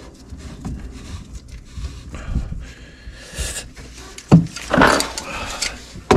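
Scattered knocks, clicks and rustling of objects being handled in a small room, with a sharp loud knock a little over four seconds in.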